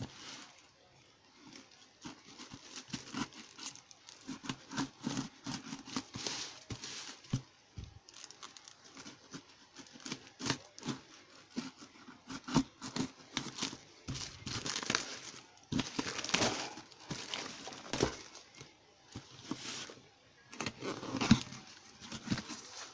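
Clear plastic wrap crinkling and tearing as it is cut and pulled off a cardboard parcel by hand, in irregular crackles. It gets busier and louder in the second half.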